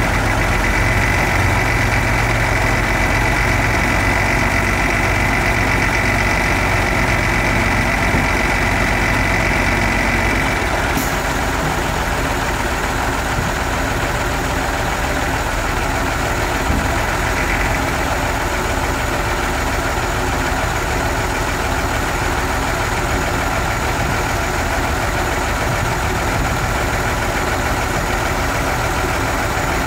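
MAN 26.280 tipper truck's diesel engine running at raised revs with a steady hydraulic whine as the tipper body is lifted. About a third of the way in, the whine stops and the engine drops back to a steady idle while the raised body is let down.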